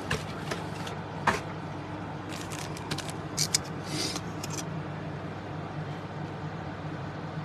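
Steady low hum in the room, with a few short crinkles and rustles of trading-card packs and cards being handled, the clearest about a second in and between two and five seconds in.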